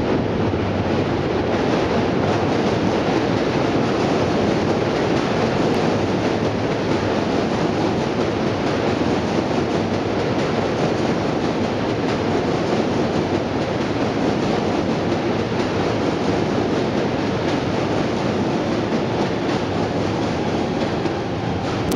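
Subway train crossing the Manhattan Bridge's steel deck overhead, heard from beneath as a steady, unbroken rattle and rumble of wheels and steelwork.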